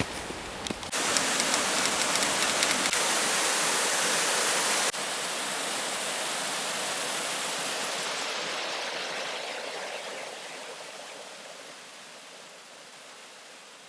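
Rushing water, a steady hiss that jumps louder about a second in, drops a step near five seconds, and fades away over the last few seconds.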